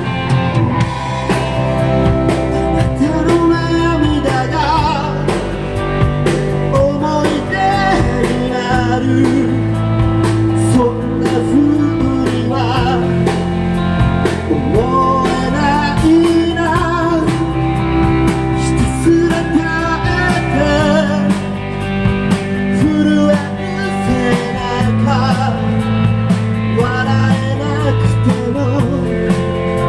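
Live rock band playing loud: electric guitars, bass guitar and drum kit, with a male lead singer singing over them.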